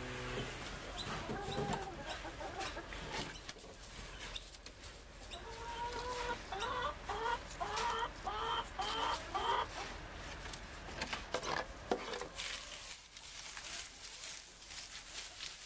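Domestic chickens clucking in a coop, with a run of about seven short rising calls in the middle and scattered clicks throughout.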